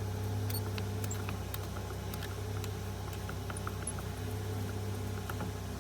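Small irregular clicks and ticks of a screwdriver working screws out of a car's plastic steering column casing, over a steady low hum.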